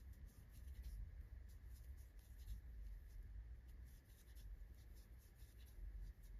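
Faint scratching and small irregular ticks of a steel crochet hook drawing yarn through stitches, over a low steady hum.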